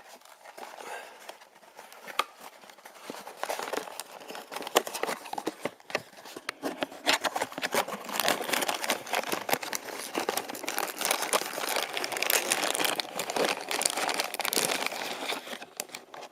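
Crinkly packaging being handled and torn open as a Funko Mystery Mini blind box and its wrapper are unpacked, a dense run of crackles and rustles that grows busier about halfway through.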